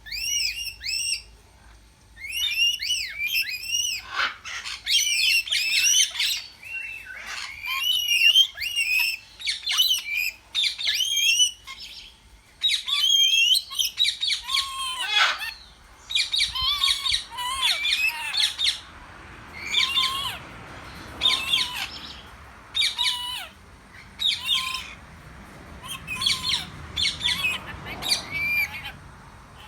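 Cockatiel calling in runs of loud chirps and squawks, with short breaks between runs. From about halfway through, a lower short note repeats roughly once a second alongside the chirps.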